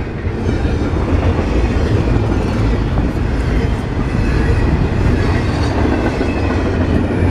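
Double-stack intermodal freight cars passing close by at speed, their wheels running loudly and steadily on the rails.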